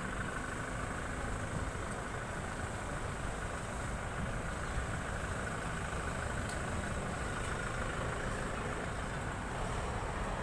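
Steady low rumble of city traffic, with no distinct events.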